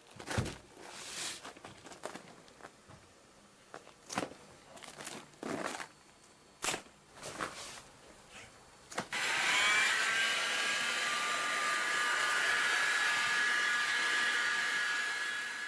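A string of short scraping and knocking noises, then about nine seconds in a small electric motor switches on. Its whine rises and settles into a steady whir.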